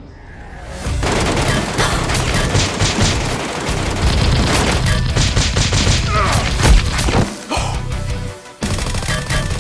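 Rapid bursts of gunfire sound effects and booms over background music, starting about a second in and breaking off briefly near the end.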